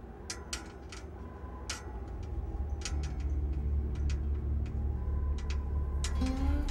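Low electrical hum that swells louder, with irregular sharp ticking clicks like the crackle of a high-voltage fence. A sustained guitar note comes in near the end.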